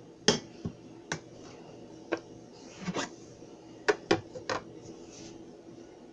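Hard objects being handled: a string of about eight sharp, irregularly spaced clicks and clinks, over a faint steady hum.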